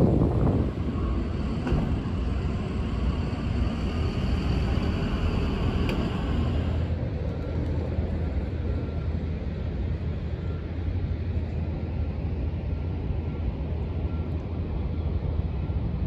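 Steady low rumble of outdoor vehicle and traffic noise, with wind buffeting the microphone near the start. From about seven seconds in, a faint high beep repeats steadily.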